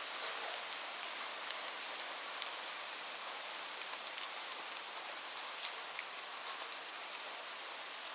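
Light rain falling steadily, an even hiss with scattered individual drops ticking sharply on a surface.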